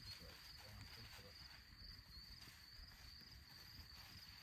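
Faint, steady high-pitched trill of chirping insects, with the low hush of the surroundings.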